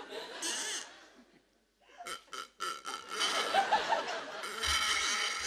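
Audience laughter, rising and filling out in the second half, broken by a few short comic noises from the stage.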